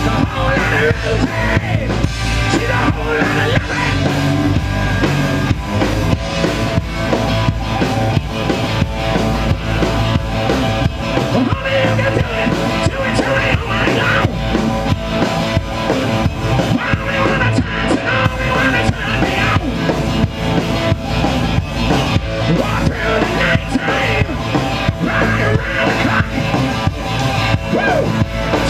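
Live rock band playing loud through a PA: amplified electric guitars over a driving drum kit.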